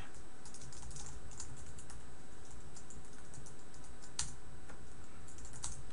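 Computer keyboard typing: irregular runs of quick keystrokes with short pauses between them, a last flurry near the end.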